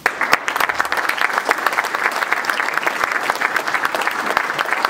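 Audience applauding: dense, steady clapping from a packed hall of people that breaks out suddenly.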